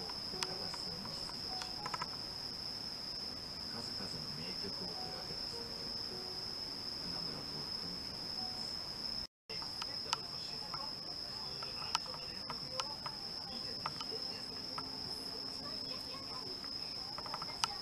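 Crickets trilling: a steady high-pitched chirring that drops out briefly about nine seconds in, with faint scattered clicks and taps.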